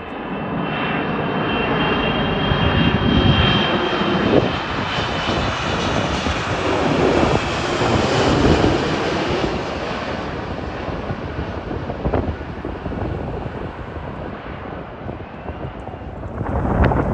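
Jet airliner passing overhead: the engine roar builds to a peak about halfway through and then fades away. A high whine falls slightly in pitch over the first few seconds.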